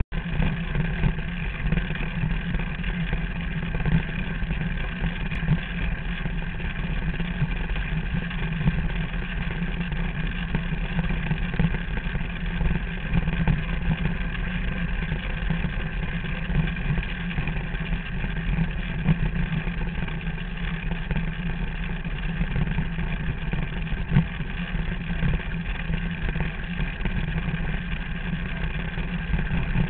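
A derny's small engine running steadily at an even speed.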